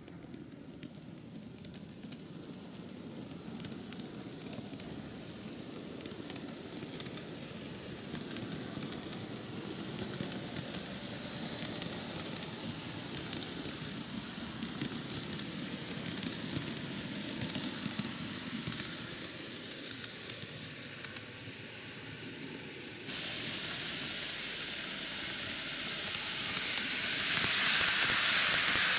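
Micro Ace N-gauge Keio 9000 series model train running on track: a steady rattling with many small clicks from the wheels and motor, growing louder as the train comes close near the end.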